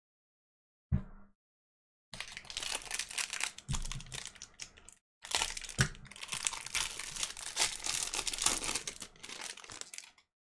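A short knock about a second in, then the foil wrapper of a Topps 2020 Baseball Series One pack crinkling and tearing as it is opened by hand, with a brief pause about halfway through.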